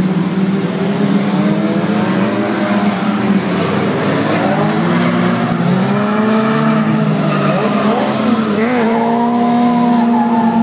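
Several 1600-class autocross cars racing on a dirt track, their engines revving hard together. Their pitches rise and fall with throttle and gear changes, and one engine wavers up and down sharply near the end.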